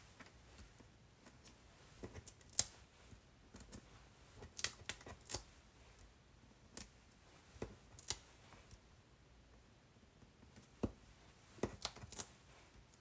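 Faint, scattered small clicks and paper rustles, about ten in all and bunched in little groups, as foam adhesive dimensionals are peeled off their backing sheet and pressed onto a cardstock card.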